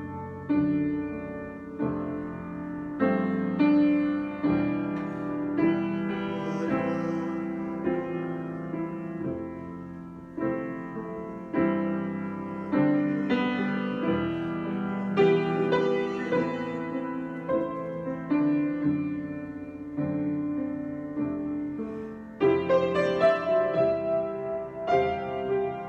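Solo piano improvisation: slow, sustained chords struck every second or two, growing louder and moving higher near the end.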